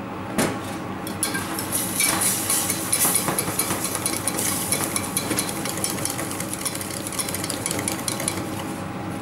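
Wire whisk rattling against a stainless steel saucepan as cream is poured slowly into hot dark caramel, which hisses and bubbles up from about a second in: cream going into the caramel for a butterscotch sauce.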